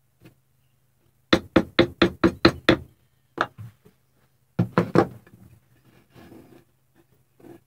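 A quick run of about eight sharp knocks, then a single knock, then a few more close together, with faint clatter after.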